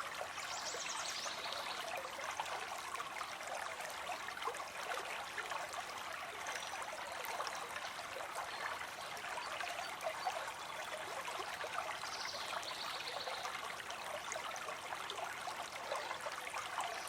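Stream of water trickling steadily, with many small splashes and gurgles.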